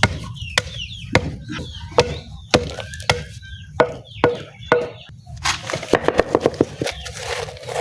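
Lumps of charcoal being broken up with repeated blows: sharp knocks about every half second, turning into a quicker run of small knocks and crunches about two-thirds of the way through.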